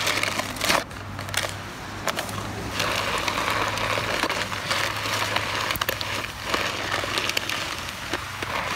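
Yellow plastic snow pusher shovel scraping along a concrete sidewalk as it pushes snow ahead of it, a continuous scrape with a short break about a second in.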